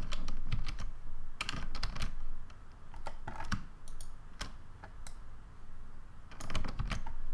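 Computer keyboard clicking in irregular bursts of several quick key presses, with short pauses between the bursts.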